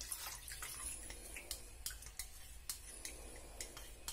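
Cornflour slurry being poured from a ceramic bowl into a pan of boiling sugar syrup: faint pouring and dripping of liquid with scattered small clicks.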